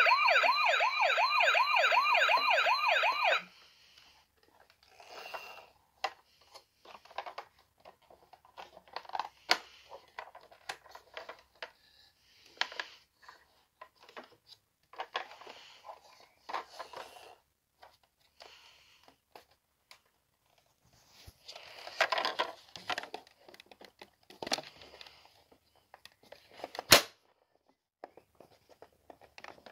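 Toy police car's electronic siren sounding a fast warbling wail for about three seconds, then cutting off. After that come scattered handling noises: rustling and knocks of the plastic toy being moved about, with a sharp click near the end.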